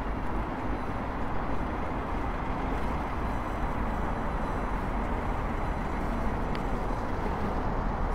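Steady noise of radio interference picked up by a Tascam DR-05X handheld recorder, with faint high steady tones over it, in a spot of strong interference. A short tick about six and a half seconds in.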